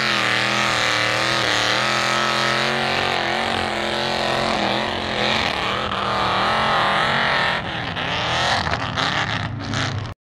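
Ford mud truck's open-exhaust engine revving hard as it churns through deep mud, its pitch wavering up and down. The sound turns choppier near the end and cuts off suddenly.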